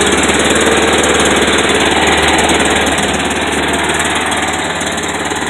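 Kawasaki Mule utility vehicle's engine running steadily after a carburetor clean and idle adjustment, easing down a little about halfway through. The mechanic thinks it probably still needs a spark plug.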